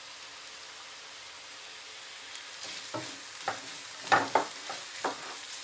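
Sliced capsicum, onion and carrot sizzling in oil as they are stir-fried on a high flame. A steady hiss at first; from about halfway a spatula scrapes and knocks against the pan as the vegetables are stirred, with the loudest strokes a little before the end.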